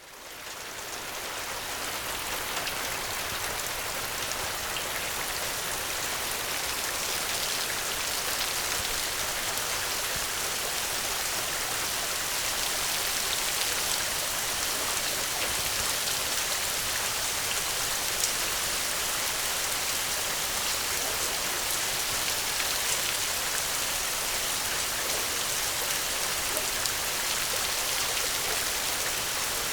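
Steady, heavy rain falling, an even hiss that fades in over the first couple of seconds. A few faint sharp ticks stand out from it, one most clearly about halfway through.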